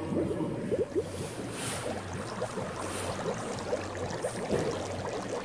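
Bubbling, gurgling water sound effect: many short rising bloops in quick succession over a steady low hum, with a soft hiss now and then.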